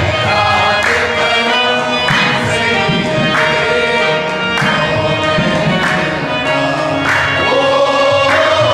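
Qawwali performed live: several male voices sing in chorus over a harmonium, with pitch glides in the vocal line. Sharp strokes keep a steady beat about every second and a quarter.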